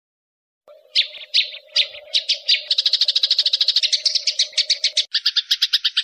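Recorded masteran calls: sharp high notes, first spaced and then quickening into a fast trill over a steady lower hum, starting just under a second in. About five seconds in it switches to a different, faster pulsed call.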